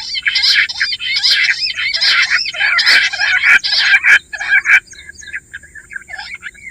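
Bush quail calling: a dense run of rapid, repeated shrill chirps, several birds overlapping, that thins out after about five seconds to scattered softer calls.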